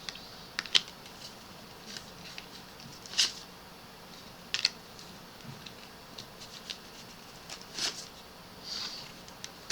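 Faint, scattered soft clicks and rustles of tarot cards being handled, a few short sharp ticks spread irregularly over several seconds.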